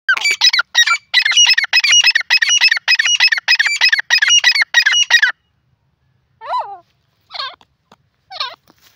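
Grey francolin calling: a fast run of loud, repeated high-pitched notes for about five seconds, then three shorter, softer calls about a second apart.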